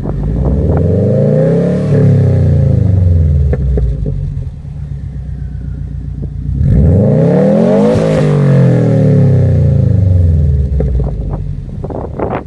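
2013 Subaru Impreza WRX's turbocharged flat-four through a Turbo XS aftermarket exhaust, revved twice while standing. Each rev rises and falls back to idle, and there is some crackling near the end.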